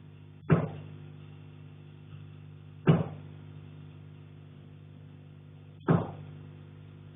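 Heavy knocks coming through the ceiling from the attic above: three single thuds a few seconds apart, each with a short ringing tail, over a steady low hum.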